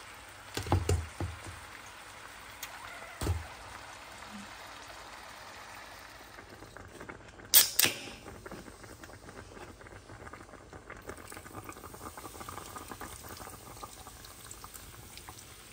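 Pan of beef ribs bubbling steadily in melted butter, with a few dull knocks as the ribs settle in the pan about a second and three seconds in, and a loud sharp click about halfway. Beer is poured over the ribs near the end.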